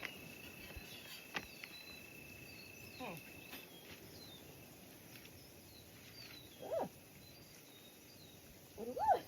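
Quiet open-air ambience: a faint steady high-pitched tone that stops about three and a half seconds in, with scattered small chirps and a brief pitched call about seven seconds in.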